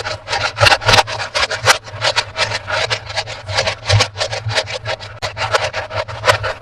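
Rapid, irregular scraping and rubbing strokes, several a second, from hands working toys and their packaging, over a low steady hum.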